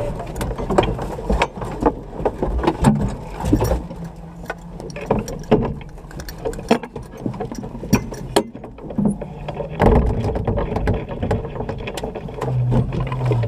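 Scattered knocks, clicks and rustling in the cockpit of a stationary off-road rally buggy with no engine running. Near the end the buggy's engine starts and runs with a steady low hum.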